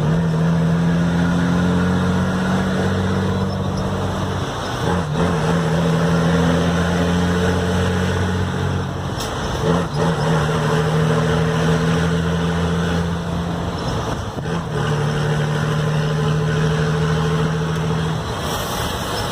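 Heavy truck's diesel engine through a straight-through exhaust, pulling hard through successive high-range gears; each gear holds a steady note for about five seconds, with a brief dip at each of four gear changes.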